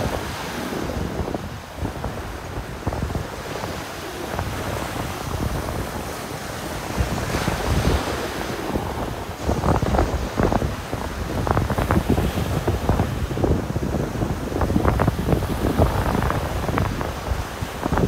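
Ocean surf washing onto a sandy beach, with wind buffeting the microphone in rough gusts that grow heavier about halfway through.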